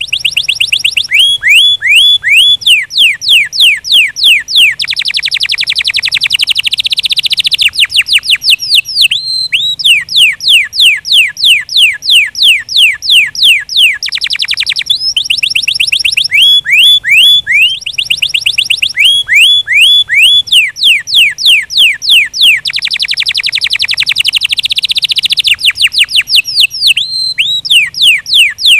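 Domestic canary singing: long, high trills of fast repeated notes, each a quick downward sweep, in phrases broken by a few short pauses.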